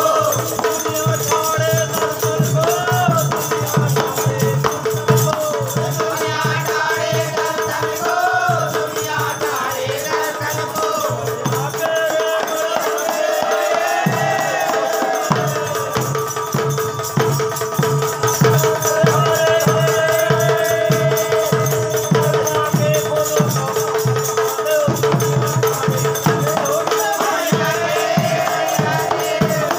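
An elderly man's voice leading a phag, a Holi folk song, over a steady drum beat and jingling rattle-like percussion.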